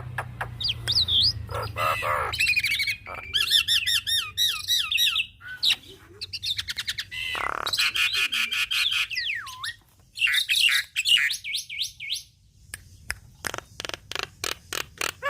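Javan myna singing a long, varied song: quick runs of clicks, wavering warbled whistles and harsh squawks, with short lulls in between.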